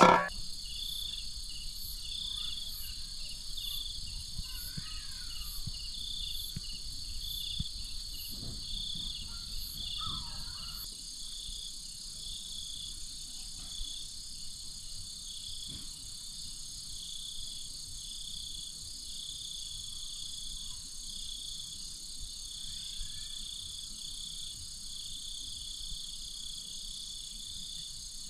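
Night insects, crickets among them, keep up a steady high trill with a chirp that repeats about once a second. Faint rustling and small clicks of hands handling bait and hooks sit underneath.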